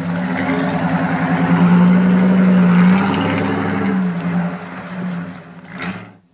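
Jeep Grand Cherokee's 5.2 L V8 engine revving as it drives through a muddy rut. The engine note rises a little, then falls and fades as the Jeep pulls away, and the sound cuts off suddenly near the end.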